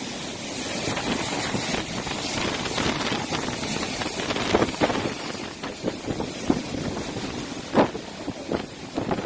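Typhoon-force wind blowing hard, a steady rush with gusts that buffet the microphone in short, sharp bursts, the strongest near the end.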